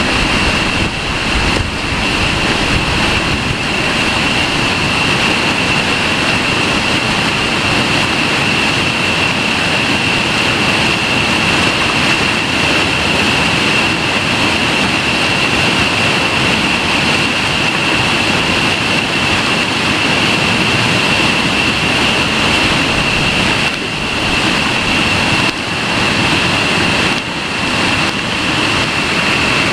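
Whitewater rapids rushing over boulders: a loud, steady roar, with a thin, steady high-pitched tone over it.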